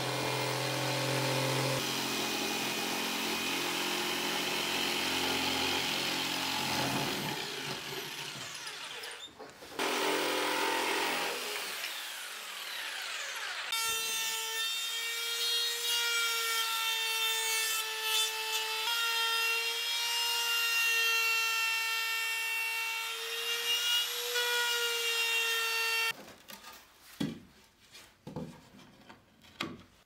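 Bosch jigsaw running and cutting through plywood, dropping out briefly about nine seconds in and fading out a few seconds later. Then a compact trim router starts with a steady high whine as it routes around the edge of a wooden disc, cutting off abruptly near the end, followed by a few faint knocks of handling.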